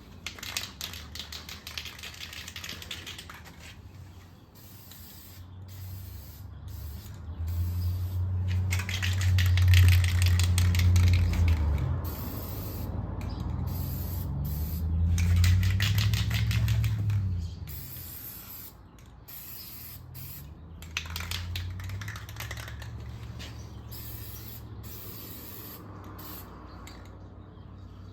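Aerosol spray can of gloss black high-heat paint hissing in about four separate bursts. A low droning hum swells in the middle, louder than the spray.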